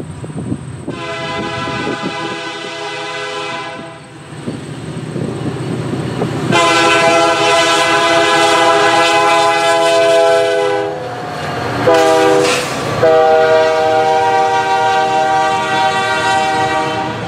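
Multi-chime air horn of a BNSF diesel freight locomotive sounding two long blasts, a short one and a long one: the standard grade-crossing warning. The locomotive and train rumble underneath as they approach and pass.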